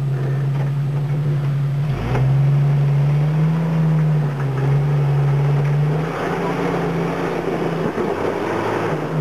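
Rock crawler's engine running under load as it climbs over boulders, its note rising and falling with the throttle. There is a sharp knock about two seconds in.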